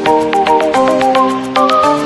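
Background music: a bright plucked or struck melody over held tones, with a quick, steady beat.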